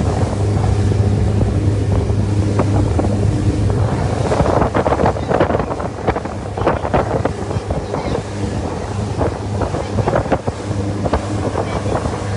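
Boat engine running steadily at a low hum, with wind buffeting the microphone in irregular gusts.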